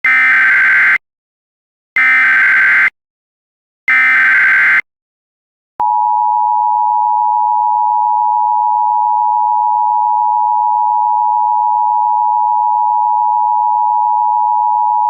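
Emergency Alert System signal: three short bursts of screeching digital SAME header data, then after a second's gap the steady, two-pitched EAS attention tone begins and holds. Together they mark the start of a new alert.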